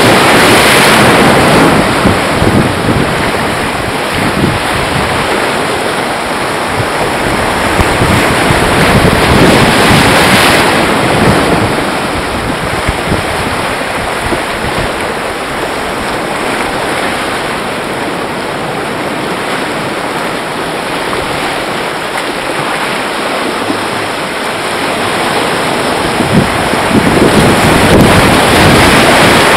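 Sea waves washing over shoreline rocks, with wind buffeting the microphone. The rush swells louder near the start, about ten seconds in, and again near the end.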